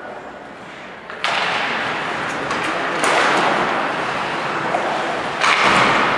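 Arena crowd cheering and yelling during hockey play. It rises suddenly about a second in and swells twice more, with a few sharp knocks of sticks or puck against the boards.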